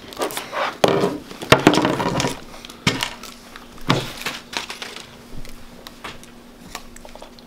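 Small pomade jars and tins handled and knocked against each other and the wooden desk: a string of sharp clicks and knocks, loudest in the first four seconds, then lighter ticks.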